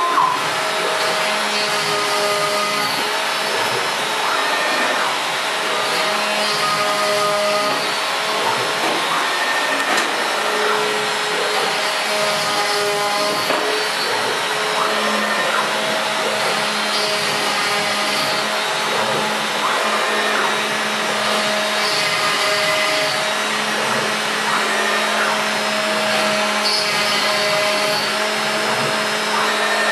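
BZT PFE 1500-PX CNC router running a milling job: a steady motor rush, with short stepper-motor whines at a few different pitches that start and stop every second or two as the axes move between holes.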